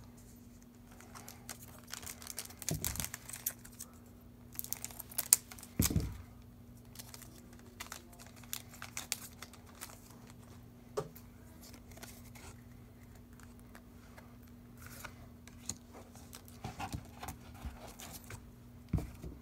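Foil wrapper of a Japanese Pokémon Shining Legends booster pack crinkling and tearing open, with the loudest rustling and tearing around five to six seconds in. This is followed by quieter handling of the trading cards: light flicks and slides.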